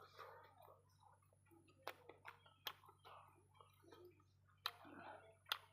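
Faint close-up chewing of food, with a few sharp clicks scattered through it.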